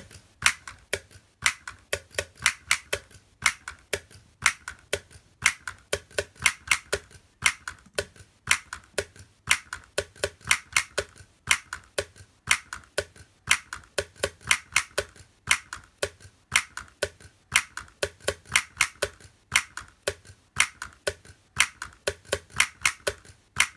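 Solenoid-driven toys playing a looped MIDI rhythm: inflatable balloon clappers slapping together and a solenoid striker tapping a small drum. They make a fast, repeating pattern of sharp taps, several a second, with short breaks between phrases.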